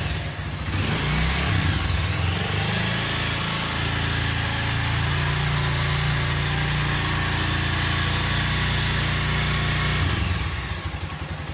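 TVS motorcycle engine revved up and held at steady higher revs for several seconds, then let back down toward idle near the end. It runs without the strange knocking noise now that the part that was hitting has been welded.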